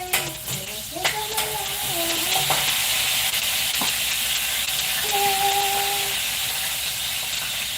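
Food sizzling in a frying pan, a steady hiss, with a couple of sharp clinks near the start. A woman hums a held note about five seconds in.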